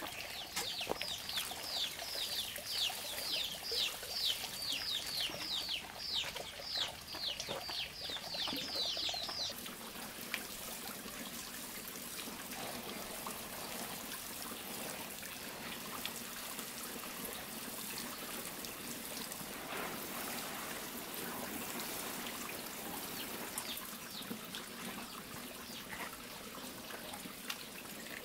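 Water sprinkling steadily from a plastic watering can onto garden soil and plants. For roughly the first third, a bird calls over it in a fast run of short, falling high notes, about three a second, which stop abruptly.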